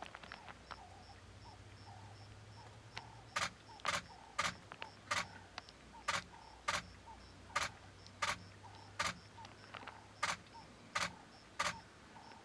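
Camera shutter clicking: a run of single shots, about one every half-second to second, starting about three seconds in.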